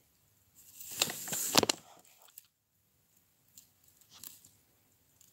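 Handling noise right at the microphone as hands move a plastic model horse against the phone: a rustle with two sharp clicks in the first two seconds, then a few faint rustles.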